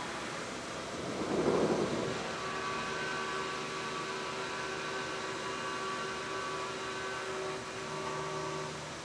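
Haas CNC milling machine cutting grade 5 titanium with an end mill under flood coolant: an even hiss of coolant spray, a louder surge about a second and a half in, then a steady whine of several tones from the spindle and cut.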